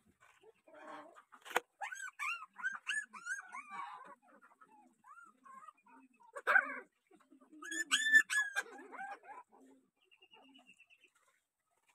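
A young puppy whimpering and yelping while being held, a run of short rising-and-falling cries, loudest about eight seconds in. A sharp click comes about a second and a half in.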